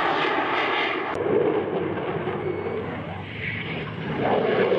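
Jet noise from an F-22 Raptor's twin F119 turbofan engines as it climbs and banks overhead. A loud, steady rushing sound that dips about three seconds in and swells again near the end.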